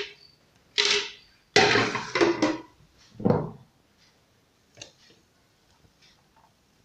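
Kitchen containers being handled on a tiled counter: a plastic blender jar and a glass jar set down and picked up, giving a few short knocks and clatters in the first few seconds. After that, juice pours faintly from the glass jar into a plastic pitcher.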